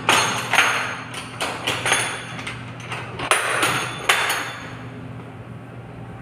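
Sharp plastic-and-metal knocks and clinks, about eight in four seconds, as the lid of a cartridge filter housing is handled during a filter change, over a steady low hum of plant machinery.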